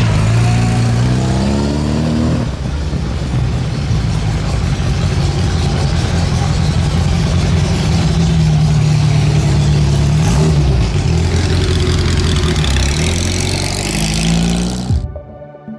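Classic Abarth sports cars' small engines revving as they pull away one after another, the last a Fiat Abarth 1000 coupé with its rear-mounted four-cylinder, which rises in pitch as it accelerates. The sound cuts off suddenly near the end.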